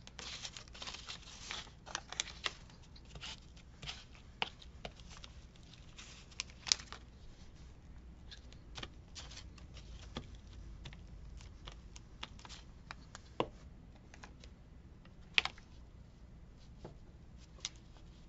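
Paper rustling and crinkling as paper pieces are handled and glued down, with scattered sharp clicks and taps on the work surface.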